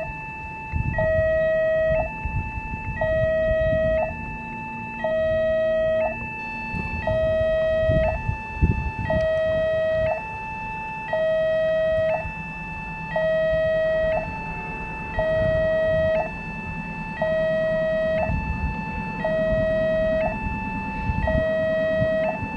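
Railway level-crossing warning alarm sounding a steady electronic two-tone signal, a higher and a lower tone alternating about once a second, which warns that a train is at the crossing. Under it runs the low rumble of a passing train, with a few knocks about eight seconds in.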